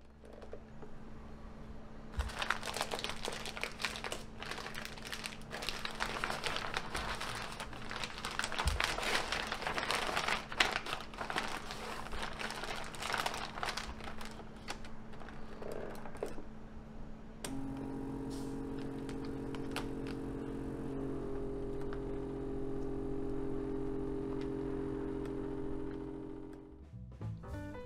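Plastic vacuum-sealer bag crinkling and rustling as it is handled, with a steak inside. About seventeen seconds in, a vacuum sealer's pump starts and hums steadily for about nine seconds, drawing the air out of the bag, then stops.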